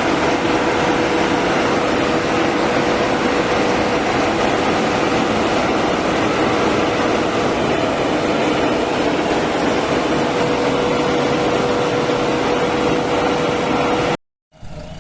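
A construction machine's engine running steadily under a loud, even noise, with a steady whine over it. It cuts off suddenly near the end.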